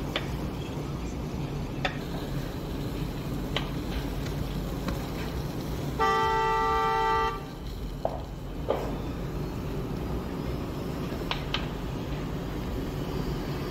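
A vehicle horn sounds once, steadily, for just over a second about six seconds in, the loudest sound here. Under it is a steady low outdoor rumble with a few scattered sharp knocks.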